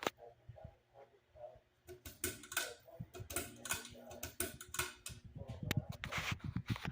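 A cat scratching at a closed door: irregular rasping scratch strokes begin about two seconds in, giving way near the end to quicker, rhythmic knocking of about five a second.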